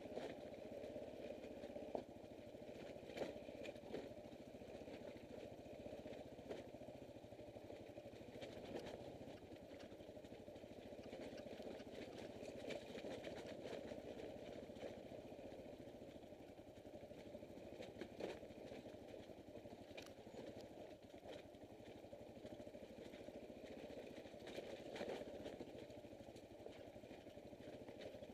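Motorcycle engine running at low, steady revs while riding slowly over a rocky dirt trail, with scattered knocks and clatter from the wheels and suspension going over the rocks.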